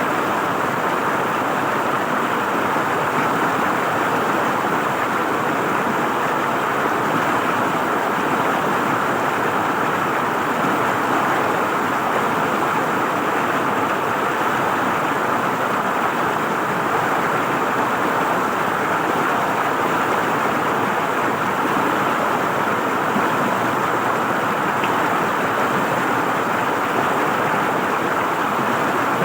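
River water flowing and gurgling, a steady unbroken rush.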